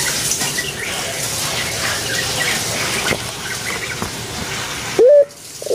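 A steady rushing noise with faint chirps of small birds. About five seconds in, a puter pelung (Barbary dove) gives a short, loud coo note, and its long drawn-out coo begins right at the end.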